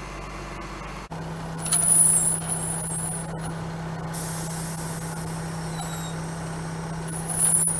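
Air hissing from a yard truck's air brake system over the engine's steady idle: a click about a second in, a loud burst of hiss around two seconds in, then a steadier hiss from about four seconds on.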